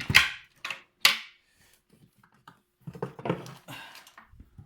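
Rummaging among tools and objects on a workbench: three short, loud scrapes or clatters in the first second or so, then quieter shuffling and handling noise.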